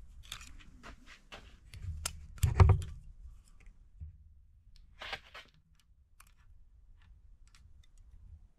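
Small metallic clicks and scrapes as a screwdriver pushes the oil pump's timing chain against a steel rule to measure chain slack, with a louder knock about two and a half seconds in and a short scrape about five seconds in.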